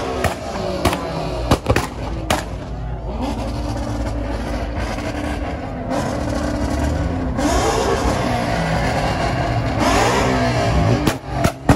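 Car engine running, then revving up twice, rising in pitch around the middle and again near the end, with a few sharp bangs at the very end.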